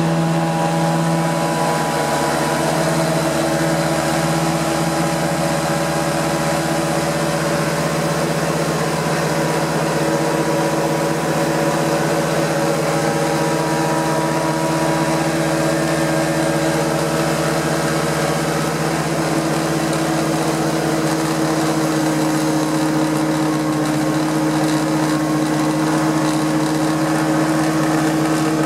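Prochem Performer 405 truck-mount carpet cleaner running: its Nissan A15 four-cylinder engine drives the Sutorbilt blower and Cat pump under load, with the pump at about 1,000 psi and about 15 inches of vacuum. A steady drone that wavers slightly in the first few seconds, then holds even.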